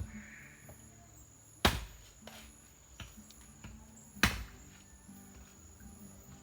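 Two heavy chopping blows by hand, about two and a half seconds apart, each a sharp strike that dies away quickly.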